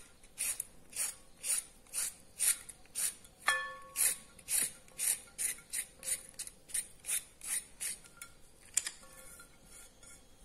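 Vegetable peeler scraping the skin off a raw carrot in short, even strokes, about two a second, thinning out after about eight seconds. A brief ringing ping sounds once a few seconds in.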